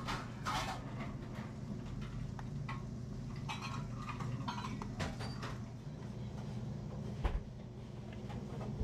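Restaurant room ambience: a steady low hum with scattered clinks and clatter of dishes, and one dull thump about seven seconds in.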